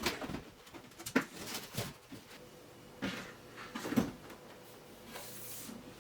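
Packaging being handled: several sharp knocks and clicks of cardboard and plastic parts, the loudest about a second in and about four seconds in, with a short rustle near the end.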